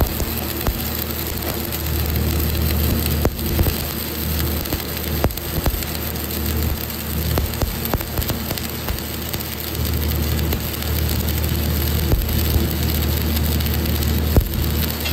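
Shielded metal arc (stick) welding: the arc of a covered electrode crackling and sizzling steadily as it lays a bead on a metal plate, with a few sharper pops and a steady low hum underneath.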